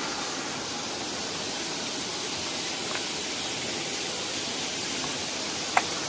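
Steady rushing of waterfall water, an even hiss that does not let up, with one brief click near the end.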